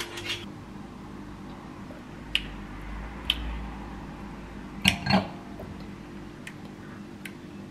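A few light clicks and knocks over quiet room tone, the loudest two close together about five seconds in.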